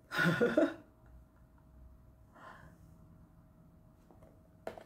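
A person's short, loud breathy gasp just after the start, then a softer breath about two and a half seconds in.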